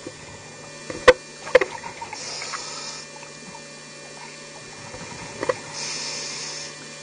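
Underwater camera audio: a steady low hum, with a short high hiss every three to four seconds, the inhalation through a scuba diver's regulator. Two sharp clicks come about a second and a half in, and another near five and a half seconds.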